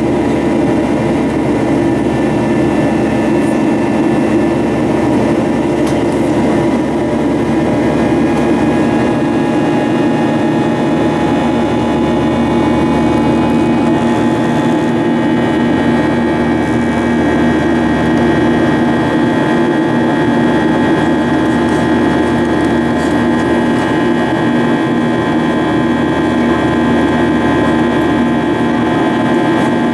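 Boeing 737-800 cabin noise heard from a window seat over the wing: the CFM56-7B turbofan engines run steadily in flight under a constant airflow rush, with a few steady whining tones that shift about halfway through.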